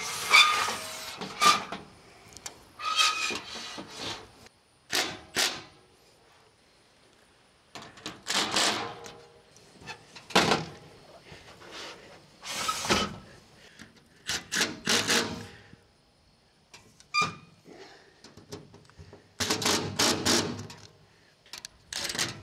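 Solar panels and ground-mount hardware being handled and fastened: a series of irregular knocks and clanks, some with a short metallic ring, separated by brief pauses.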